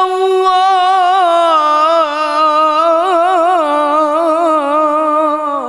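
A male qari reciting the Quran in the melodic tilawah style, holding one long sung note. The note holds steady, steps a little lower about two seconds in, then wavers in quick ornamental turns before it stops at the very end.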